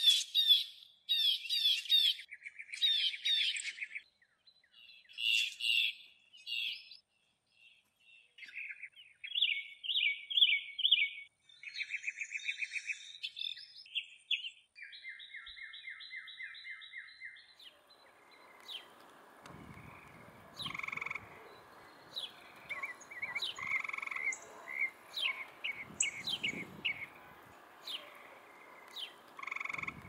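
Birds calling: a string of separate bursts of quick, repeated chirping and trilling notes, each a different pattern. After about 18 seconds the calls turn into many short high chirps over a steady background hiss.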